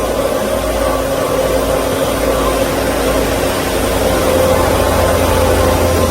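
KOTEC Diamond-1000T high-speed band saw machine running, a steady mechanical whine over a low hum that grows a little louder about four seconds in.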